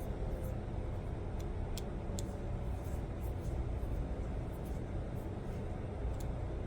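Steady low background rumble, with a few faint light clicks in the first couple of seconds from small plastic parts being handled and fitted together.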